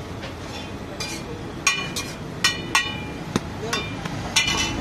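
A slotted steel spatula clinking and scraping on a flat iron tawa as pav buns are turned in butter: about eight sharp, ringing metal strikes, irregularly spaced and loudest near the middle.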